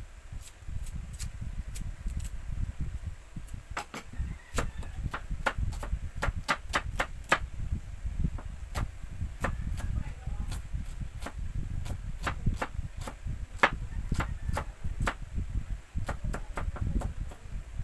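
Kitchen knife chopping red onion on a wooden chopping block: sharp knocks of the blade against the wood, a few scattered strokes at first, then quick runs of strokes with short pauses between them, over a low steady rumble.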